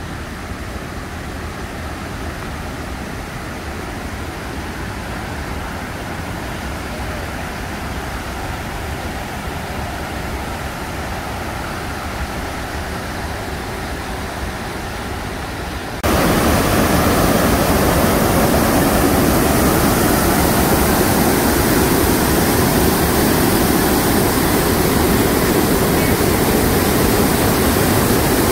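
Rushing water of a river's chutes, its waterfalls and rapids, heard as a steady rush. About halfway through it suddenly gets louder and brighter, then holds steady.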